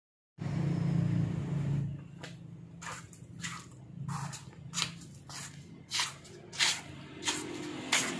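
Footsteps of sandals slapping on a concrete floor at a walking pace, about two a second, after a low hum in the first two seconds.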